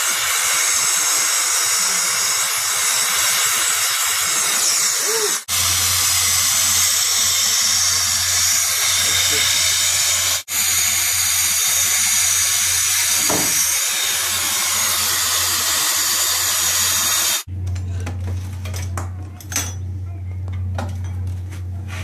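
Acetylene brazing torch burning with a steady hiss while it heats the copper refrigerant joints on a heat pump's compressor and expansion-valve piping to unsweat them. Near the end the torch hiss gives way to a few light metallic clinks.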